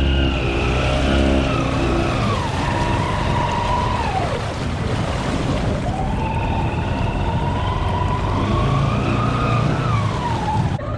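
Snorkeled ATV engine pulling hard through deep muddy water, over the wash of churned water and mud. Its pitch sags about two seconds in and climbs back from about six seconds.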